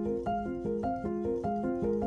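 Background music: a quick run of pitched notes, about five a second, over a lower line and a steady pulse.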